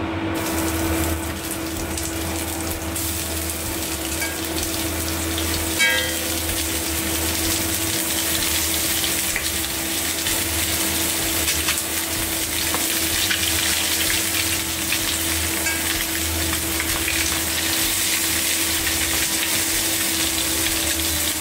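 Flour-coated chicken wings sizzling as they pan-fry in a little hot oil in a stainless wok over high heat, the sizzle growing a little louder as more wings are laid in. A brief ringing clink about six seconds in.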